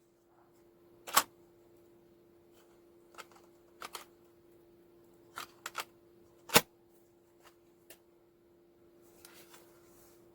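Scattered sharp clicks and knocks, about ten in all, with the loudest about a second in and another just past the middle, over a faint steady hum.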